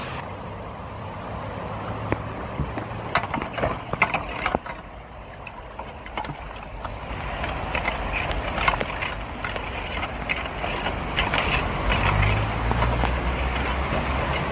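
Floodwater rushing and gurgling down a street storm drain, with the tines of a garden rake repeatedly scraping and clattering on the metal grate as leaves and debris are pulled clear. A low hum comes in near the end.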